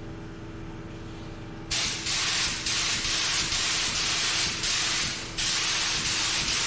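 Gravity-feed touch-up spray gun hissing as it sprays Dover white base coat, in a run of trigger pulls with short breaks, starting about a second and a half in. A steady hum with a low tone lies underneath.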